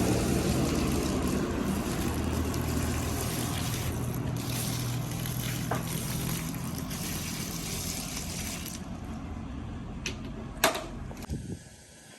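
Pressure washer running and spraying water onto a rug, a steady motor hum under the hiss of the spray. A couple of sharp clicks come shortly before it stops near the end.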